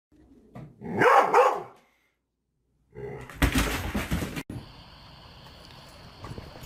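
A dog barks loudly for about a second. About two seconds later comes a burst of noise lasting about a second and a half as a cat leaps out of a cardboard box, ending abruptly.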